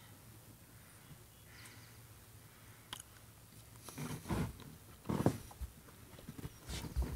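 Faint mouth and finger noises as a pinch of moist snuff is packed into the lower lip: a small click about three seconds in, then a few short rustling, lip-working noises around the middle and near the end.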